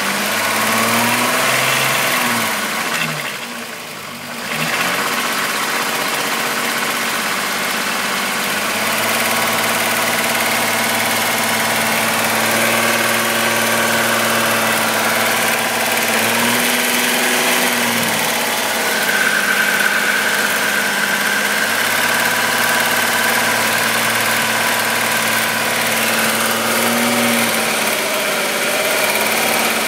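Volkswagen Golf VR6 2.9 engine running near idle, with a few brief rises and falls in engine speed. It is the sound of an engine whose owner hears a timing chain rubbing, a noise that got louder after he replaced the upper hydraulic chain tensioner.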